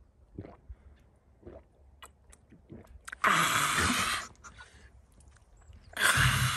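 A man gulping from a plastic bottle, with faint swallowing sounds. About three seconds in comes a loud breathy exhale. A second gasping, breathy laugh comes near the end.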